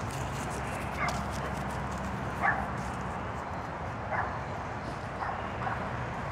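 A dog barking: about five short single barks a second or so apart, the second the loudest, over steady background noise.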